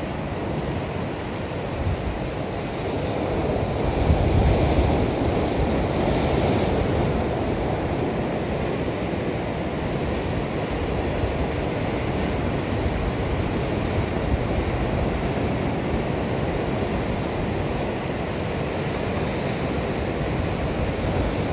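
Sea waves breaking and washing over shoreline rocks, a steady surf with a louder surge about four seconds in, with wind on the microphone.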